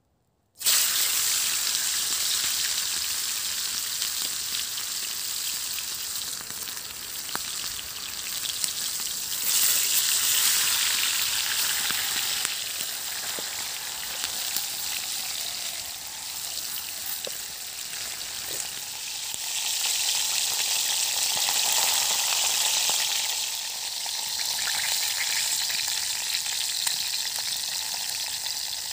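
Masala-coated chicken leg pieces deep-frying in a pan of hot oil. The sizzling starts suddenly about half a second in as the first piece goes into the oil, and swells louder a few times as more pieces are added.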